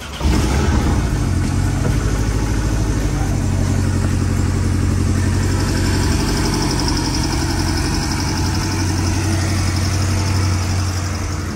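Porsche Boxster sports car engine idling steadily, coming in suddenly right at the start.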